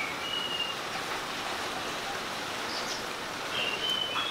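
Small birds chirping over a steady background hiss: a few short high chirps at the start and again near the end.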